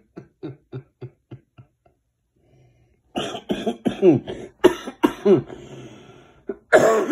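A man's laughter trailing off in short pulses, a brief pause, then a coughing fit of loud, repeated coughs starting about three seconds in, brought on by laughing.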